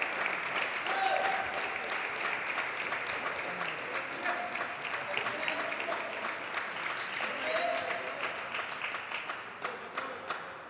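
Audience applauding with a few voices calling out. The clapping thins out to scattered claps and dies away near the end.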